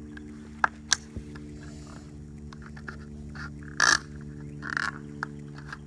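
Scissors cutting into a thin plastic soda bottle: a couple of light clicks, then two short, louder cuts about four seconds in and again a second later, over a steady low hum.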